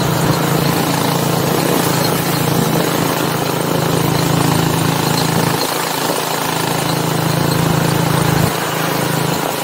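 Motorized tricycle's motorcycle engine running at a steady cruising speed, with wind noise over the microphone. The engine's steady tone dips briefly twice, once near the middle and once near the end.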